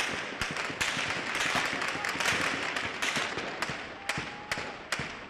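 A rapid, irregular series of sharp bangs and cracks over the noise of a crowd in the street, the crowd swelling loudest around the middle.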